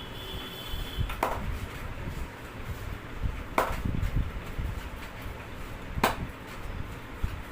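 Three sharp smacks of a masseur's hands striking the head, evenly spaced about two and a half seconds apart.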